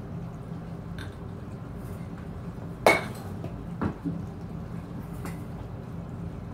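A youth baseball bat hitting a ball off a batting tee: one sharp crack with a brief ring about three seconds in, then a softer knock about a second later. A steady low hum runs underneath.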